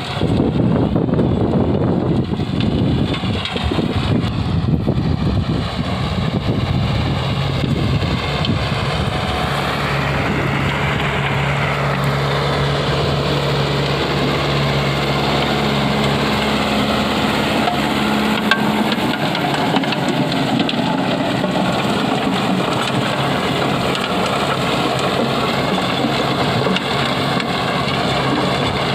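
Kubota MU5501 tractor's diesel engine running steadily, working a rotavator.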